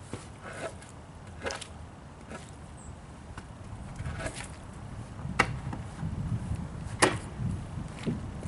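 Wooden boards knocking and clacking as they are handled and laid down, with scattered lighter knocks and two sharper clacks about five and seven seconds in.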